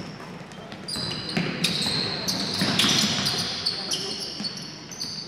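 Youth basketball game in a sports hall: the ball bouncing and sneakers squeaking on the court floor, with voices in the background. It gets louder about a second in, as play moves up the court.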